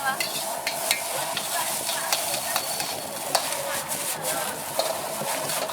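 Food sizzling in a hot wok while a metal spatula stirs it, clanking and scraping against the wok in irregular strikes.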